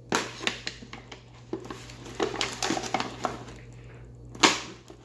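Toy packaging being handled and pulled apart: scattered clicks, crinkles and rustling of cardboard and plastic, with one louder sharp crack about four and a half seconds in.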